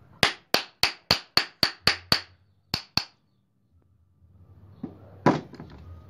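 Hammer tapping the metal housing of a car radiator fan motor to close it up: eight quick, sharp, ringing taps about three a second, two more a moment later, and one loud knock near the end.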